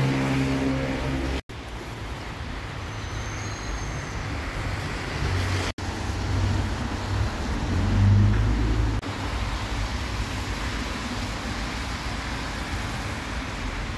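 Road traffic on rain-wet city streets: car engines and the hiss of tyres on the wet road, with a vehicle passing loudly about eight seconds in. The sound cuts out briefly twice.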